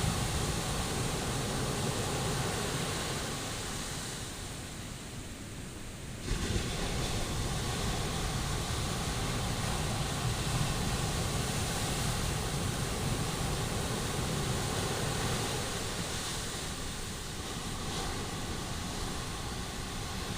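Sea surf washing onto the beach, a steady roar of breaking waves. It dips for a couple of seconds and then surges back suddenly about six seconds in. Wind rumbles on the microphone.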